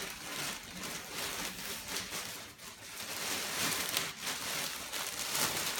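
Plastic carrier bag rustling and crinkling in bursts as clothes are packed back into it.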